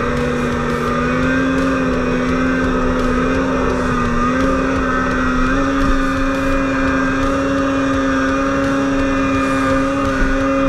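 Snowmobile engine running at high revs under load as the sled climbs through deep powder, the pitch holding steady and stepping up slightly twice near the middle.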